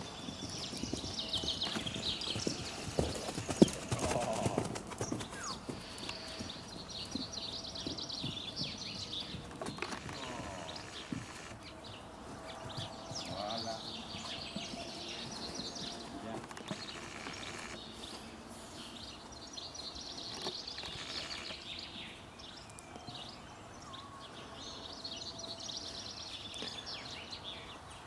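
Hoofbeats of a Lusitano horse on a sand arena while it is lunged: a trot at first, thinning out to slower walking steps.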